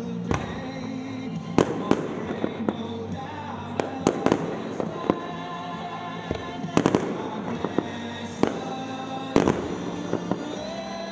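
Aerial fireworks going off in about ten sharp, irregularly spaced bangs, with music playing along underneath.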